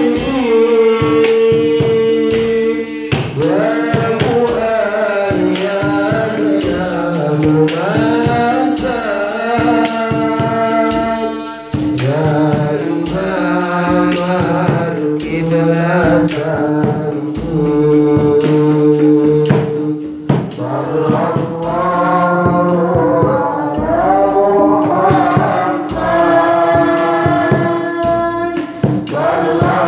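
Islamic sholawat sung by a male vocalist through a microphone, his line bending and gliding in melismatic phrases. Hand drums with jingles keep a steady beat underneath.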